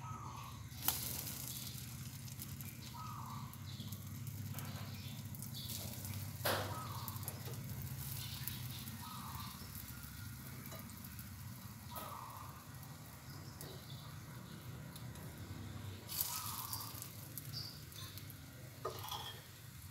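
Egg-dipped bread slices frying in melted butter in a nonstick pan, a soft steady sizzle. A few sharp knocks come as more slices are laid into the pan, about a second in, halfway through and near the end.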